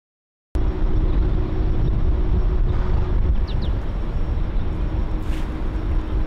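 A steady low rumbling noise starts abruptly about half a second in, with a faint steady hum under it and a faint high chirp about three and a half seconds in.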